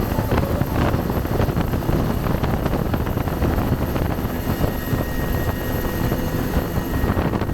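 Helicopter in flight: steady rotor and engine noise.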